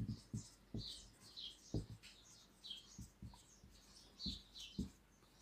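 Whiteboard marker writing on a whiteboard: a string of short, faint squeaks as the felt tip drags over the board, with light knocks of the marker against it.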